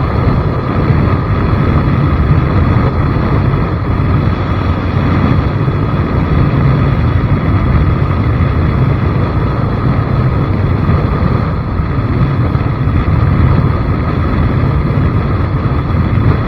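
Loud, steady wind rumble on the microphone mixed with the running noise of a vehicle in motion.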